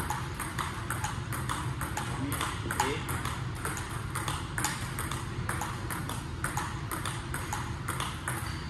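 Table tennis balls clicking in a quick, even run, about three clicks a second, as balls are fed from a box and struck back with rubber paddles in a multiball drill and bounce on the table, over a steady low hum.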